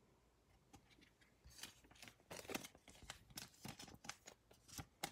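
Faint, scattered rustles and light ticks of trading cards and a thin plastic card sleeve being handled, with a sharper tick near the end.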